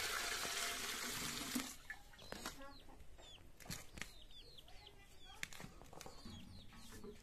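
Water pouring in a steady stream from a pot into a metal bowl, stopping about a second and a half in. Then chickens clucking and chirping, with a few sharp taps.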